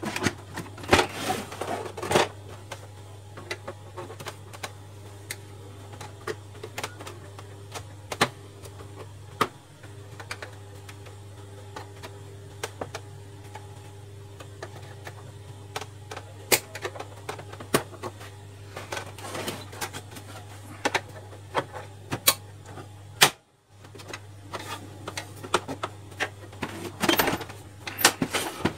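Scattered plastic clicks, taps and knocks from handling the casing of an HP LaserJet Pro MFP M125a printer as its side cover is taken off, bunched near the start, about two-thirds of the way through and near the end.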